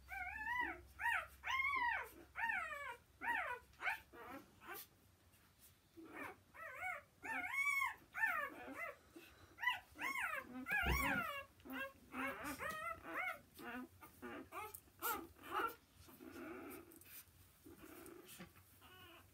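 Newborn Gordon Setter puppies squeaking and whimpering as they nurse: many short, high squeals that rise and fall in pitch, coming thick and overlapping, then thinning out near the end. A single sharp knock about eleven seconds in.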